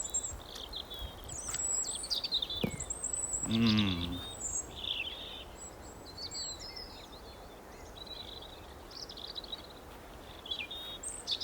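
Small songbirds chirping and trilling, many short high calls overlapping. A brief voice-like sound comes about three and a half seconds in.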